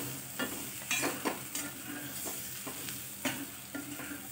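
Steel spatula stirring and scraping stuffed green bell peppers and spice masala around a stainless-steel kadhai, in a string of irregular scrapes and knocks against the pan.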